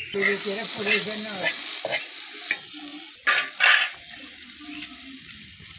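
Metal spatula stirring and scraping small dried prawns and tomato on a flat frying pan, with a light sizzle. Two sharp, loud scrapes come about three and a half seconds in, then the frying goes on more quietly.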